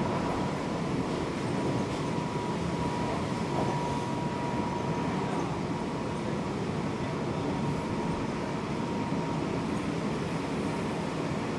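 Seibu 6000 series electric train running, heard from inside a motor car: a steady rolling and running rumble, with a thin steady whine over it that fades out about nine seconds in.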